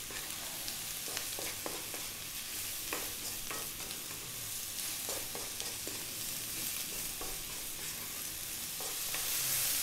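Sliced mushrooms, onion and garlic sizzling steadily in hot oil in a wok over high heat, stirred with a wooden utensil that scrapes and taps lightly against the pan now and then.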